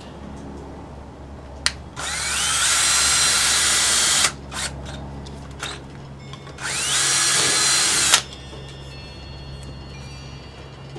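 Power drill boring two holes through PVC pipe: two runs, the first about two seconds long and the second a little shorter, each beginning with a rising whine as the motor spins up. Between them come a few short clicks of handling.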